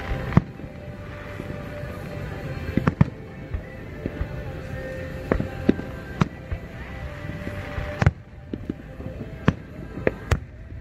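Aerial fireworks shells bursting: a string of sharp bangs and crackles at irregular intervals, about a dozen in all, the loudest around three and eight seconds in.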